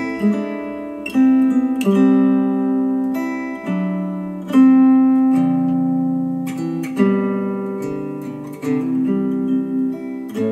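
Acoustic guitar music, slow plucked notes ringing out and decaying, played back through Elac DBR62 bookshelf speakers driven by a Rega Brio integrated amplifier.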